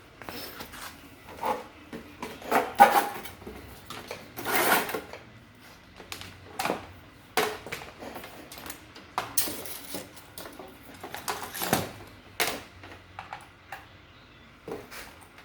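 Irregular clicks, knocks and short scrapes of hard fan parts being handled and fitted together during an electric fan repair, with one longer scraping rattle about a third of the way in.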